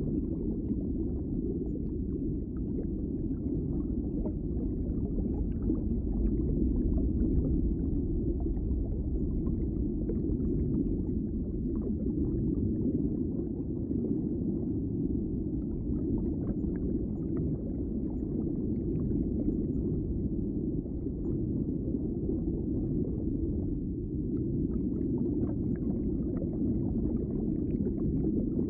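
Underwater ambience: a steady, muffled low rumble of water, with faint small crackles scattered above it.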